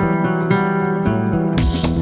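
Background instrumental music: held melodic notes, with a beat of percussion coming in near the end.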